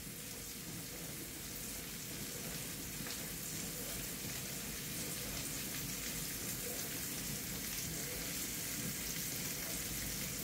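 Diced onion sizzling in oil in a frying pan: a steady, gentle hiss.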